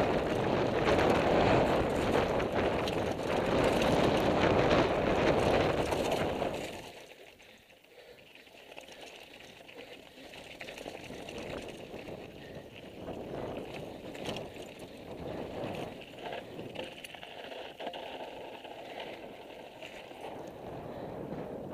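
Mountain bike descending a loose, rocky dirt trail: wind rushing over a helmet-mounted camera together with tyre and bike rattle over the stones. About seven seconds in it drops abruptly to a much quieter, uneven background as the bike slows.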